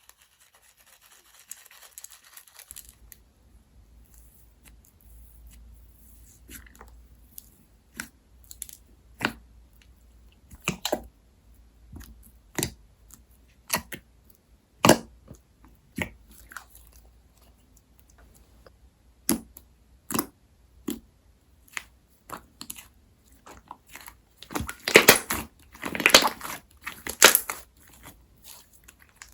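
Slime being pressed and worked by hand, giving sharp pops and crackles about every second or two, then a dense run of crackling a few seconds before the end.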